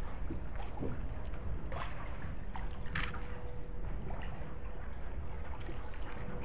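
Canal water lapping and splashing around a moving gondola, with a few short, sharper splashes, the clearest about three seconds in, over a steady low rumble.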